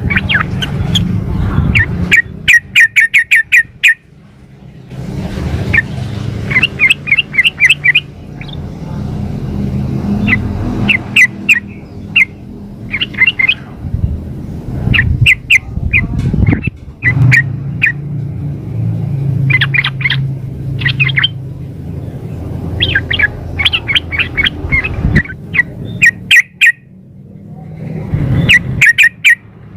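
Female yellow-vented bulbul (trucukan) giving repeated bursts of rapid, chattering chirps, each burst about a second long with short pauses between. It is a female's call to males. A steady low rumble runs underneath.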